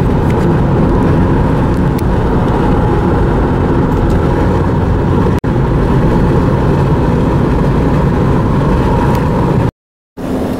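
Steady road and wind noise of a moving car. It drops out for an instant about halfway and stops near the end.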